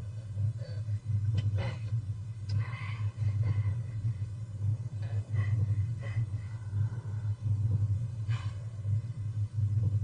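A steady low rumble, with a few faint clicks and short higher-pitched sounds over it.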